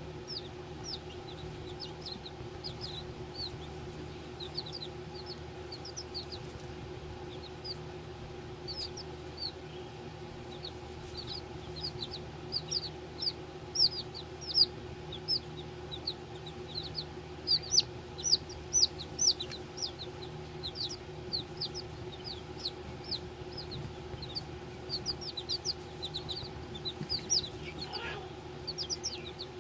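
Baby chicks peeping: a continuous stream of short, high-pitched, falling peeps, busiest and loudest in the middle, over a steady low hum.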